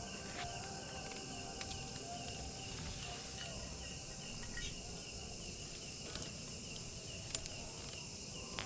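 Night insects, crickets among them, chirring steadily and high-pitched, with a few sharp clicks over the top, the loudest near the end.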